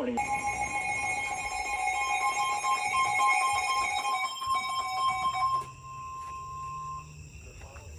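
Emergency Alert System attention tone from a NOAA Weather Radio: a loud, steady electronic alarm tone of two pitches sounded together for about five and a half seconds, after which one pitch goes on more quietly for another second or so before stopping. It signals that a new warning broadcast is about to follow.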